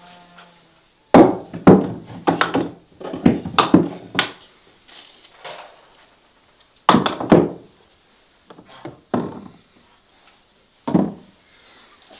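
Knocks and thuds on wood in quick irregular succession, about eight of them in the first few seconds. More come in scattered ones and twos afterwards, the last about eleven seconds in.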